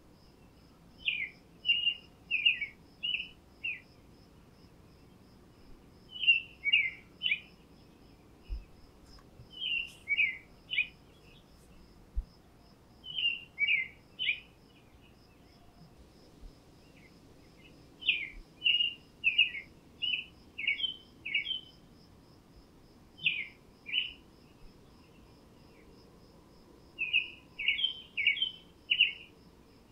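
A songbird singing short phrases of five to eight quick notes, a new phrase every few seconds. Under it runs a faint, steady, high-pitched insect trill.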